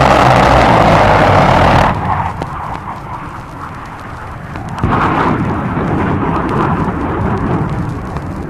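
Military aircraft and ordnance sound effects from a 1962 U.S. Air Force recording: a loud rushing roar that cuts off suddenly about two seconds in, then a sudden blast about five seconds in that rumbles and fades slowly.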